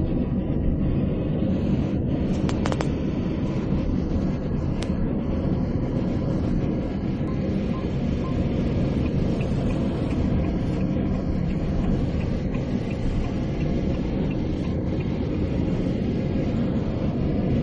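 Steady low rumble of road and engine noise inside the cabin of a car travelling at highway speed.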